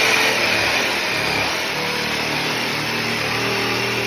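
Festool Carvex cordless jigsaw running steadily.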